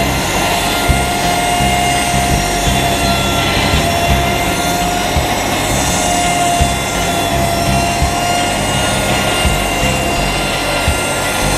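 Vintage rack saw bench running: its large circular blade spins with a steady whine as a log on the travelling carriage is fed toward it, over irregular low knocks.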